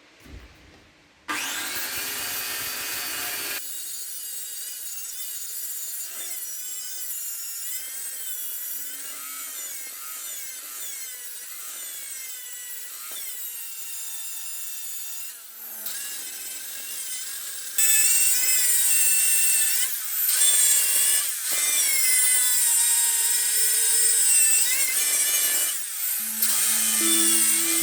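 Metal being ground on a power-driven abrasive wheel, a continuous hissing scrape with a wavering whine that shifts in pitch as the work is pressed on. It starts about a second in and gets clearly louder about two-thirds of the way through, with a few short let-offs.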